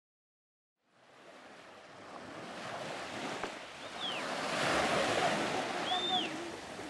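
Sea waves washing in, fading up from silence about a second in and growing louder, with two short high calls over them.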